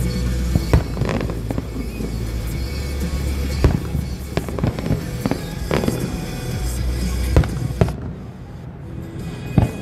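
Aerial fireworks shells bursting: about ten sharp bangs at irregular intervals, one to two seconds apart, over a steady low rumble.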